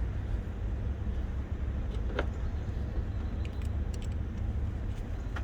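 Steady low rumble, with one sharp metallic click about two seconds in and a few lighter ticks near the end as spring-type hose clamps are handled.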